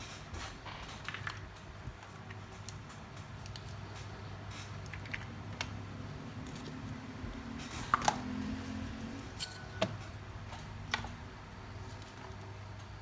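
Scattered light clicks and taps of small metal tools being handled on a phone-repair bench, over a steady low hum. The two sharpest clicks come about eight and ten seconds in.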